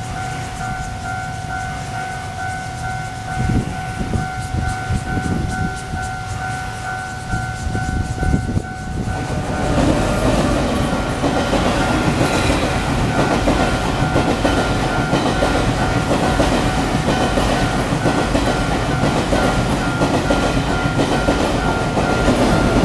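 Level-crossing warning signal sounding a steady two-tone ring throughout. From about ten seconds in, a TRA push-pull Tze-Chiang express (E1000 series) passes close by, with a loud, continuous rush and rail clatter that carries on to the end.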